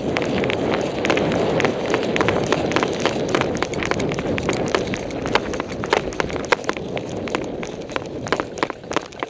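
A person running, with footfalls and gear rattling as many irregular sharp clicks over a steady rustle. It fades near the end.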